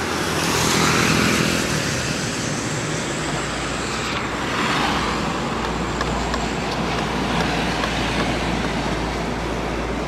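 Road traffic going past close by: cars, trucks and motorcycles, with the low rumble of a heavy truck from about halfway through.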